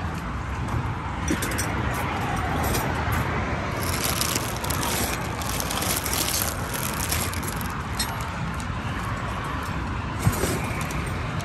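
Outdoor background noise: a steady low rumble, with a stretch of brief crackly rustling about four to seven seconds in and a single small knock near the end.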